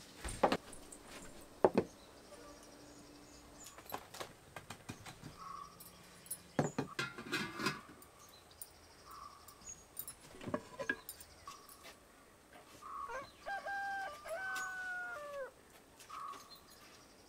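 A rooster crows once about thirteen seconds in: a single long call of about two and a half seconds that drops in pitch at the end. Sharp knocks and clinks of cooking vessels come throughout, the loudest near the start.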